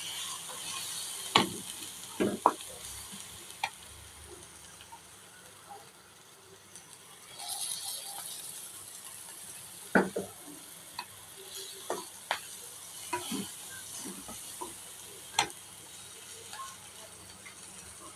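Food sizzling as it fries in a pan, with a spatula stirring it and knocking and scraping against the pan at irregular moments. The sizzle swells near the start and again about halfway through.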